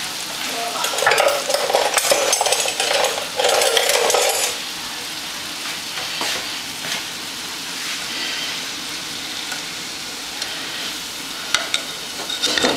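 Plantain pieces deep-frying in hot oil in a metal pot, a steady sizzle that is louder for the first few seconds. Near the end a fork clicks against the pot as a piece is lifted out of the oil.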